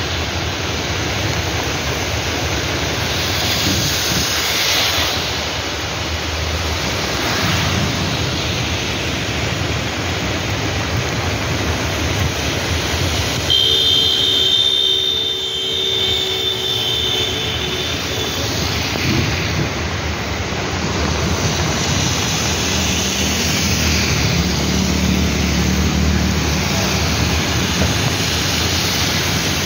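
Heavy rain and the hiss of tyres on a wet road, heard from inside a moving car, as a steady loud wash of noise with a low rumble under it. About halfway through, a steady tone, high and low together, holds for about five seconds.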